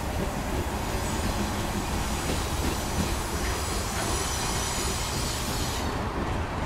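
Boxcars of a slow-moving CN freight train rolling past: a steady rumble of steel wheels on the rails, with a faint high wheel squeal that drops away about six seconds in.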